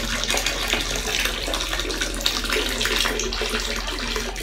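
Hot water poured from a metal kettle in a thin stream into the standing water of a toilet bowl, splashing steadily.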